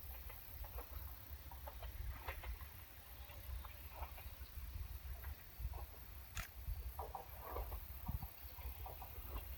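Quiet outdoor ambience: scattered short animal calls over a low, uneven rumble, with one sharp click about six seconds in.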